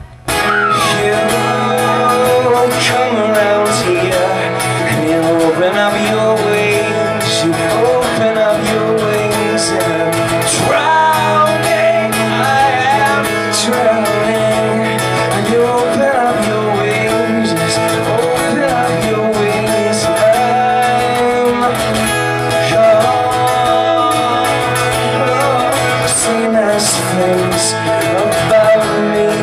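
Live acoustic guitar and bowed cello playing a song together, with a male voice singing. The sound drops out for a split second at the very start.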